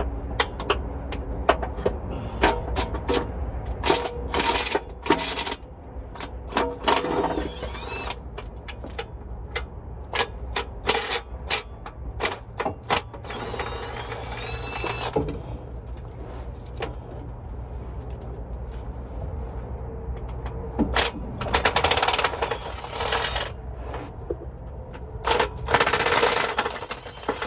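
Hand tools working on a 4L60E transmission from underneath: clusters of rapid clicks and metal clinks, some of them ringing briefly. They thin out for a few seconds in the middle and come back denser near the end, over a steady low hum.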